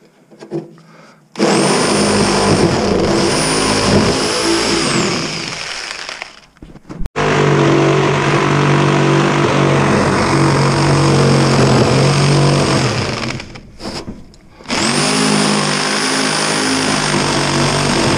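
Corded reciprocating saw (Sawzall) cutting through the metal of an air conditioner unit in three loud runs. The motor whine rises each time the trigger is pulled and falls as it is let go, over the rattle of the blade chattering in the metal.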